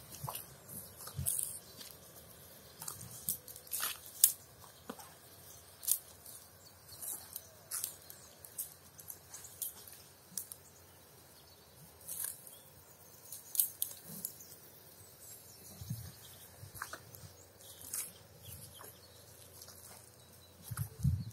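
Cow grazing: irregular crunching and tearing of grass as it crops and chews, with a few low thuds near the middle and end.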